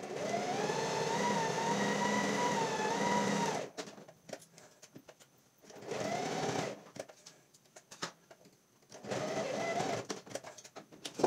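Electric household sewing machine stitching, its motor whine climbing to speed. One run lasts about three and a half seconds, then come two short bursts of about a second each, with small handling clicks in the pauses. A sharp click comes at the very end.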